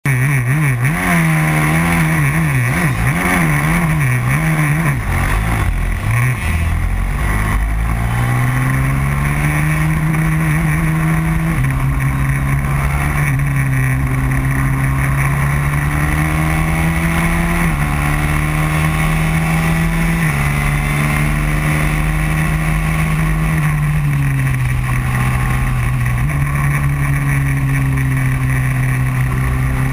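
Racing kart engine heard from on board at race pace. Its pitch wavers up and down quickly for the first few seconds, then climbs, drops abruptly several times and falls and rises again through the corners.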